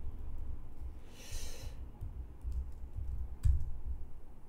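Computer keyboard keystrokes while code is edited: irregular clicks and light thuds, one sharper keystroke about three and a half seconds in. A short soft hiss a little after a second in.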